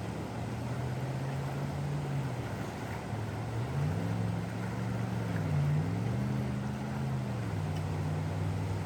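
Engine hum of motor vehicles over a steady rushing noise; in the middle, one engine's pitch rises while another's falls, as vehicles pass.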